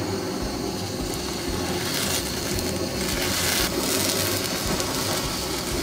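Handheld gas kitchen torch burning with a steady hiss, its flame played over cheese to brown it.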